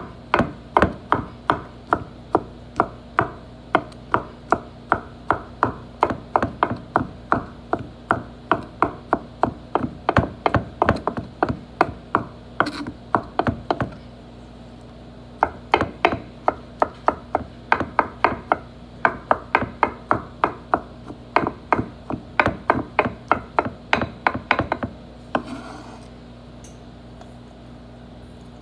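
Knife chopping on a wooden cutting board in quick, steady strokes, about two to three a second, in two long runs with a short break about halfway through, over a steady low appliance hum.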